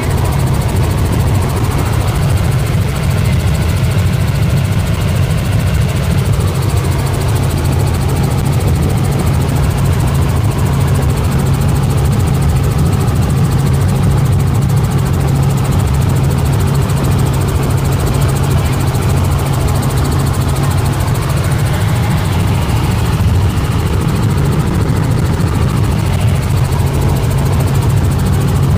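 Small helicopter in flight heard from inside the cabin: a loud, steady low drone of rotor and engine, with air rushing through the cabin.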